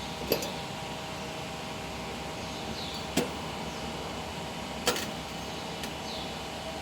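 Steady electrical hum of a running machine with an even hiss, broken three times by a short sharp metal click.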